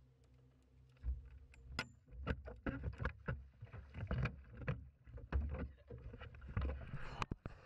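Water sloshing and splashing with a run of irregular knocks and low thumps against a boat's hull, starting about a second in, as a person in the water grabs the gunwale and hauls himself aboard.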